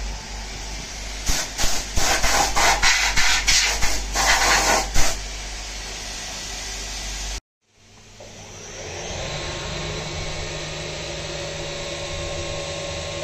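CNC milling machine enclosure: hissing with a run of irregular loud rushes for the first few seconds. After a short break, the mill's spindle comes up to speed under a steady hum as the face mill begins decking the aluminium stock.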